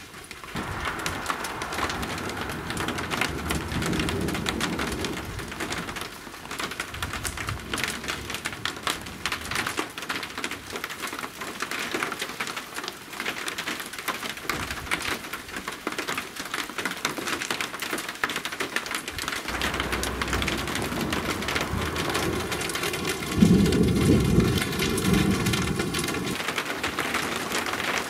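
Large raindrops falling in a heavy thunderstorm shower, with thunder rumbling low a few seconds in. A louder peal of thunder starts suddenly about three-quarters of the way through.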